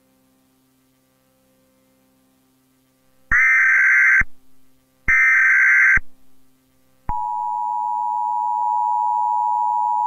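Emergency Alert System tones. After a faint low hum, two loud one-second bursts of warbling digital header data sound, and about seven seconds in the steady two-tone EAS attention signal begins and holds.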